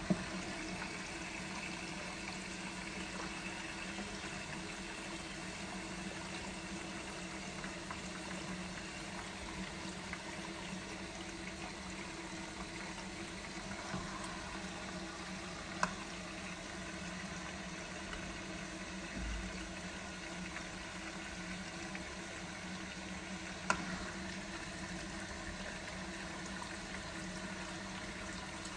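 Siemens Siwamat Plus 574 washing machine running, water rushing through it over a steady mechanical hum. A few sharp clicks stand out: one at the start, and two more about halfway and two-thirds of the way through.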